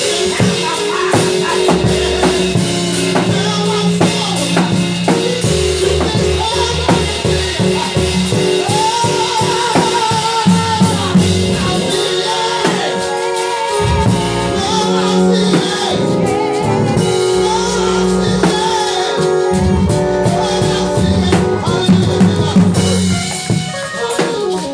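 A man singing a gospel song into a handheld microphone over a live drum kit and sustained instrumental chords, holding long wavering notes.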